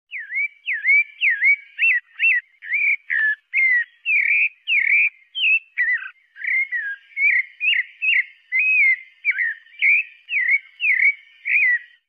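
Sabiá-parda thrush singing: a continuous run of short, clear whistled notes, about two a second, each one sliding in pitch and varying from note to note.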